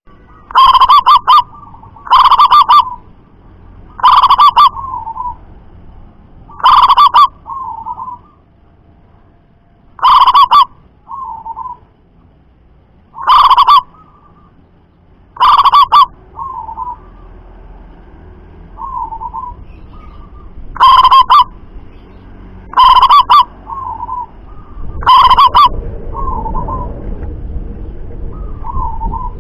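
Zebra doves (perkutut) calling: about ten loud, short coos at uneven gaps of two to five seconds, so loud they distort. Softer coos follow several of them, and a low rumble of background noise rises near the end.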